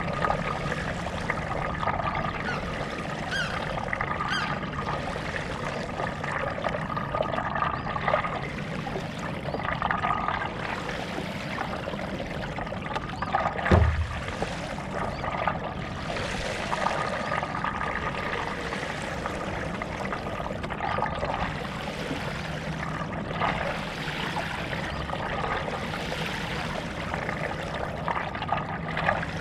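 Stand-up paddle strokes through lake water: a splash and trickle that swells every two to three seconds as the paddle dips and pulls through. One short low thump comes about halfway through.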